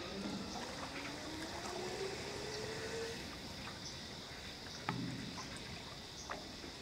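Faint outdoor ambience: a thin tone rises slowly over the first three seconds, and a single sharp knock sounds about five seconds in.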